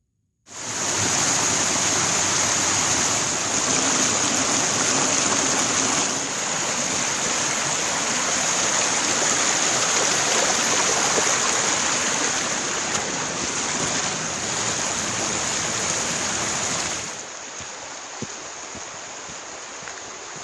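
A stream rushing steadily, a loud, even wash of water. About 17 seconds in it cuts off abruptly to a quieter steady hiss.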